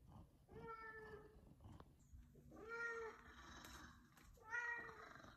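F2 Savannah cats meowing three times, separate calls about two seconds apart: begging for their chicken.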